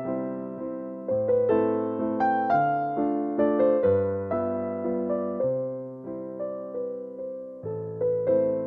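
Background piano music: a gentle melody of struck notes that ring and fade, with steady bass notes beneath.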